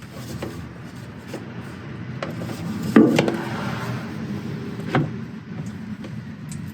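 Knocks and scraping from tools and parts being handled under a truck during an oil change. The loudest knock comes about three seconds in, followed by scraping, and a second knock comes about two seconds later.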